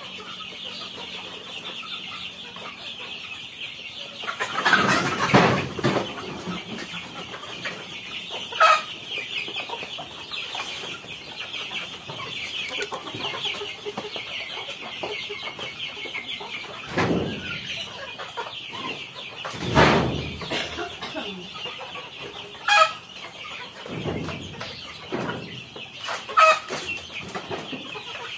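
A flock of native chickens clucking, with a handful of louder separate calls every few seconds over a steady high-pitched background drone.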